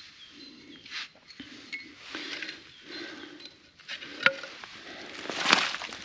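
A broken glass beer bottle fragment is handled and set back down on the forest floor: rustling of dry needles, leaves and a jacket sleeve, with a light glass clink about four seconds in. A louder rustle through the leaf litter comes near the end.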